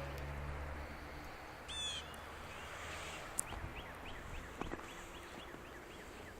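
Small birds chirping over a steady hiss: a quick cluster of high chirps about two seconds in, then a run of short falling chirps, about three a second. A low hum fades out in the first second.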